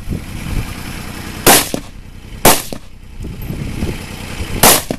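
Three rifle shots from an AR-15-style semi-automatic rifle during an IPSC stage run: two about a second apart, then a third about two seconds later. Each sharp crack is followed by a short echo.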